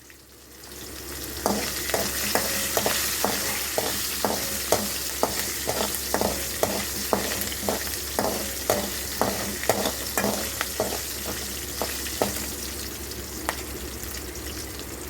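Tempering of dals, mustard seeds, chillies and curry leaves sizzling in hot oil, with a regular run of short knocks about twice a second that stops a few seconds before the end.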